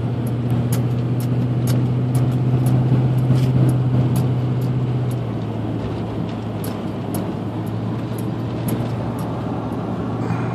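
Truck engine and tyre noise heard from inside the cab while driving along a paved road: a steady low hum that eases off slightly about five seconds in.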